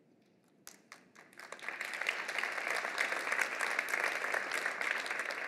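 Audience applauding: a few scattered claps at first, building after about a second and a half into steady applause.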